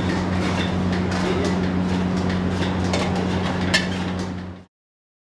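Restaurant kitchen background noise: a steady low hum and rush with scattered light clicks and clinks, and one sharper clink near four seconds in. The sound fades out and stops about four and a half seconds in.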